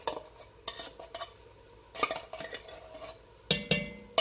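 Metal spoon scraping tomato sauce out of a tin can, with a few sharp scrapes and taps against the metal at irregular intervals, bunched about two seconds in and near the end.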